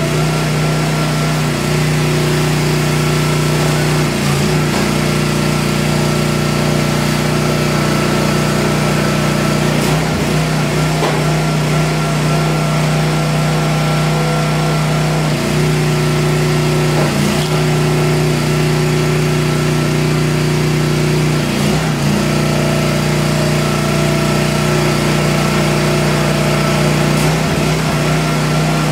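Homemade 25-ton log splitter's motor and hydraulic pump running steadily, its note changing every few seconds as the control valve is worked and the ram pushes through the logs.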